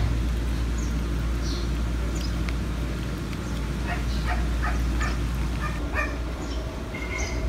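Cat chewing and crunching fried fish, with a steady low outdoor rumble underneath and a cluster of short, sharp sounds in the middle.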